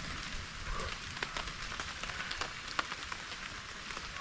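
Light rain falling on a tarp overhead: a steady hiss with scattered single drops hitting sharply.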